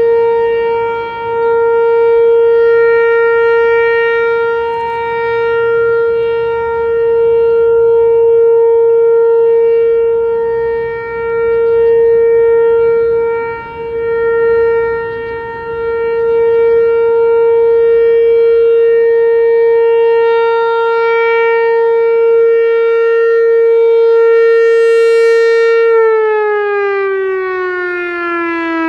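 ASC T-128 outdoor warning siren sounding a steady tone, with a few brief dips in loudness. Near the end it starts to wind down, its pitch falling.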